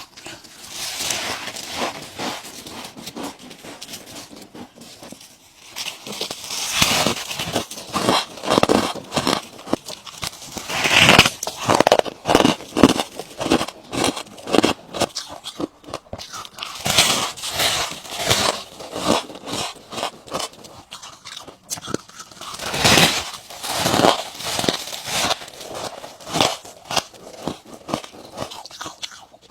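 Ice being bitten and crunched close to the microphone, bite after bite in crackling clusters, with a quieter pause a few seconds in.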